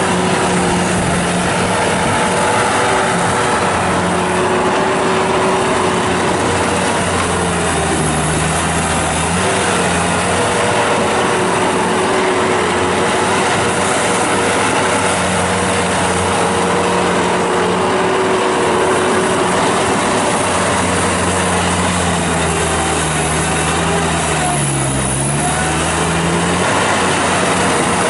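Bobcat T190 skid steer loader's diesel engine running steadily at working speed. Its pitch dips briefly twice, about a third of the way in and near the end.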